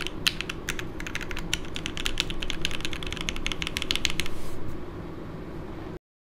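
Typing on a Hineybush Ibis custom mechanical keyboard with lubed FFF switches, an aluminium plate and GMK keycaps: a quick run of clacking keystrokes that stops about four and a half seconds in, leaving a steady air-conditioner hum. The sound cuts off completely about a second later.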